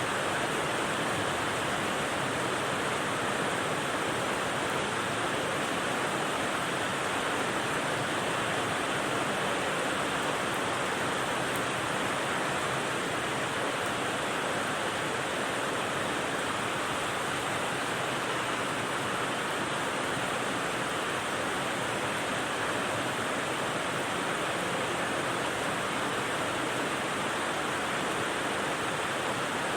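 Rain white noise: a steady, even hiss of rain that never changes in level.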